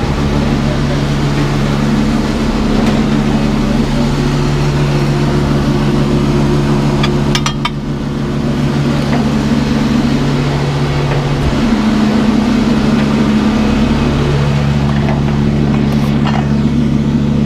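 Heavy-duty rotator wrecker's diesel engine running steadily, its note easing briefly about eight seconds in, with a couple of faint clicks.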